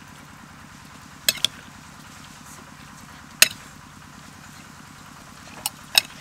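Metal spoons tossing a salad in a glass bowl, clinking against the glass: twice about a second in, once near the middle, and twice near the end, over a steady low hum.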